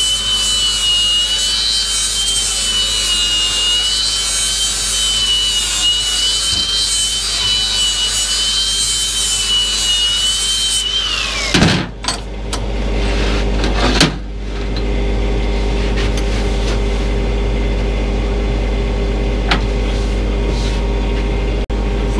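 Bench grinder running with a steel part pressed against its wheel: a steady high whine over a harsh grinding hiss. About eleven seconds in the grinding stops and the motor's whine falls away as it spins down. A couple of knocks follow as the part is set down, then a steady low hum.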